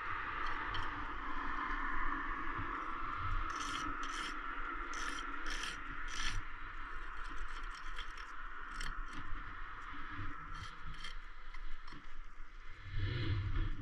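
Steel brick trowel scraping and tapping mortar on the brickwork, a scattered run of short scrapes and clicks over a steady hiss.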